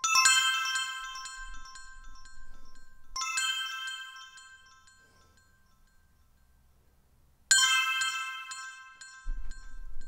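Layered bell-sample notification tones played back three times, at the start, about three seconds in and about seven and a half seconds in. Each is a bright struck bell chime that rings out and fades, with its layers pitched a fifth and an octave apart.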